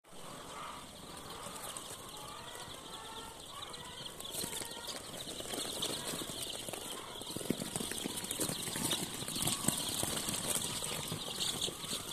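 A large flock of baby chicks peeping continuously as a dense, high-pitched chatter, growing louder a few seconds in.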